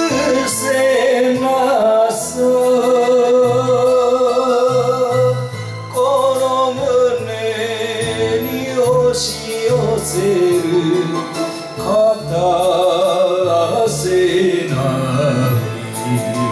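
Japanese enka song: a man singing over a karaoke backing track, with heavy vibrato and sliding ornaments on the held notes.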